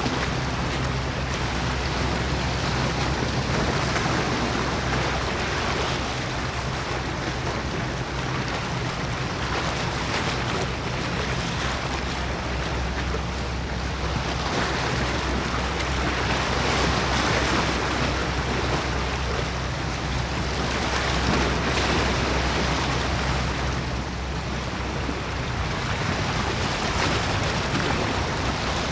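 Wind buffeting the microphone over the wash of the sea, rising and falling every few seconds, with a steady low drone of a ship's engine underneath.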